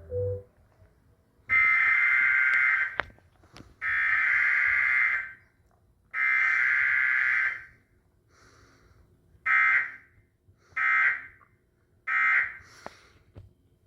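Emergency Alert System (SAME) data tones: three long blasts of rapid warbling digital data, each about a second and a half, then three short end-of-message blasts.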